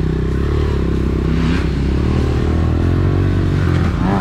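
Honda CRF125F's small single-cylinder four-stroke engine running at low speed as the trail bike is ridden slowly over dirt with the clutch partly held in. The engine note wavers a little and shifts near the end.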